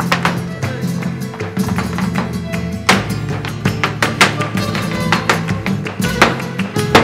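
Live flamenco farruca: flamenco guitar with bowed strings underneath and a fast run of sharp percussive strikes from the dancer's footwork and palmas, with a few louder accented strikes in the second half.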